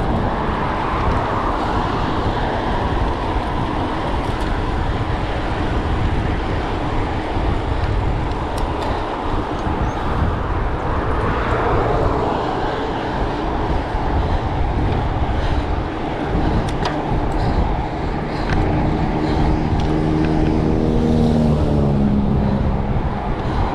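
Wind buffeting a bicycle's handlebar camera, with tyre hiss and motor traffic passing on the road alongside; one car goes by about halfway through. Over the last few seconds a vehicle's engine hum builds as a larger vehicle comes up alongside.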